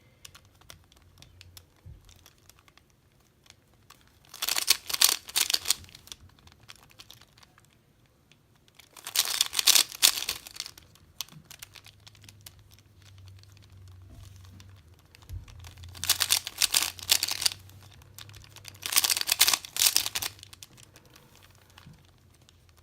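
A 3x3 Rubik's cube being turned quickly in the hands: four bursts of rapid plastic clicking and rattling, each a second or two long, with quiet pauses between. Each burst is a run of J-perm algorithm moves.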